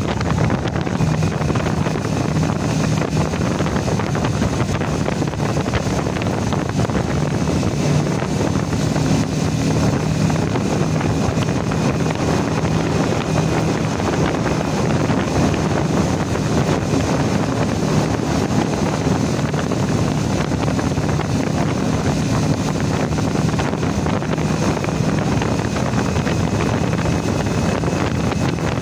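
Motorcycle on the move: steady wind rushing over the microphone, with the engine's even hum underneath.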